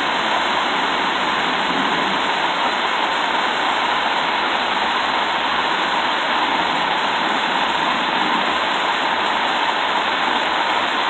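Hand-held gas torch burning with a steady hiss, its flame heating an old steel brake-line fitting toward red heat.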